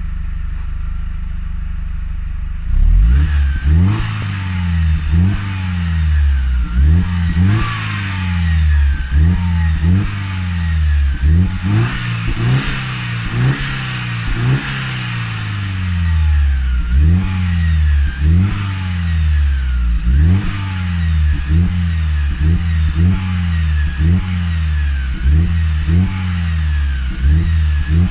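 Mercedes-Benz SLK 200 Kompressor's supercharged four-cylinder engine, heard at the exhaust, idling steadily. From about three seconds in it is revved in short blips, roughly once a second, each rising and falling back in pitch.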